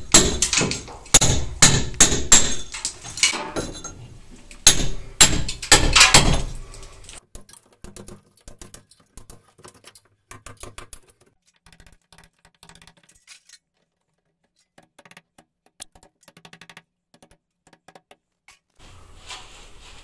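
Club hammer striking a plastered brick wall, knocking out plaster and broken brick. A quick run of sharp blows comes in the first several seconds, then only faint scattered knocks.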